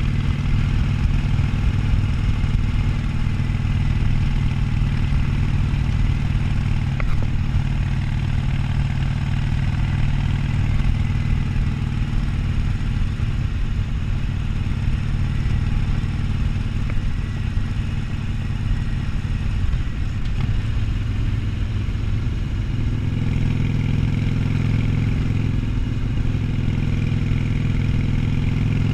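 Harley-Davidson Sportster 1200's air-cooled V-twin engine running under way at steady cruising speed. Its note eases about twenty seconds in, then picks up and strengthens.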